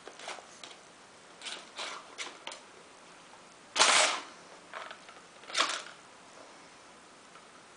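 Kittens batting at a plastic ball-track toy: a series of short plastic clacks and rattles. The loudest comes about four seconds in, with another strong one about a second and a half later.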